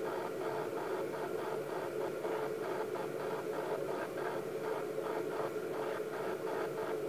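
Steady hiss with a constant hum underneath, unchanging in level.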